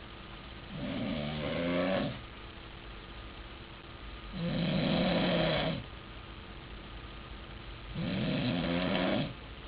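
A man snoring loudly: three long snores, evenly spaced about three and a half seconds apart, each lasting about a second and a half.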